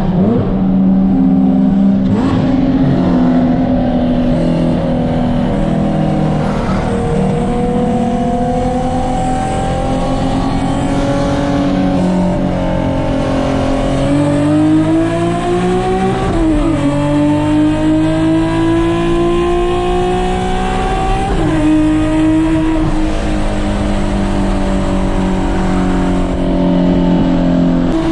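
Nissan 370Z's VQ V6 engine pulling hard under full throttle in a race. Its pitch climbs slowly and drops sharply at two upshifts, one past the middle and one about three-quarters through.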